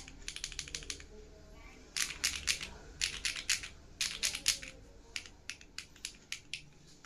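Typing on an Enter67 v2 mechanical keyboard with OTC Modo Light switches and Akko Cilantro keycaps: quick runs of keystrokes, turning to sparser single key presses after about five seconds.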